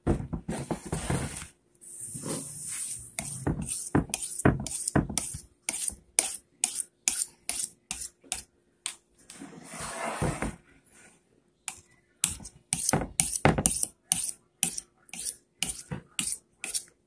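A knife blade scraping and cutting along the rim of a metal baking pan, trimming off the excess pie dough: a few longer scrapes, then quick repeated strokes about two to three a second.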